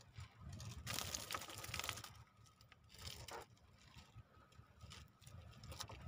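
Fine fishing net rustling and crinkling as hands pull a small fish free of the mesh, loudest for about a second shortly after the start.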